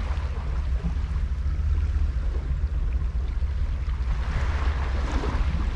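Wind buffeting the microphone in a steady low rumble, over sea washing against the rocks, with a louder wash of surf about four seconds in.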